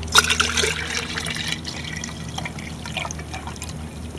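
Distilled water poured from a jug into a glass mason jar: a steady trickling stream that starts just after the opening.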